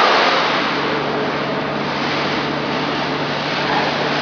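Steady running hum and hiss of a vacuum membrane press, with a constant low hum underneath.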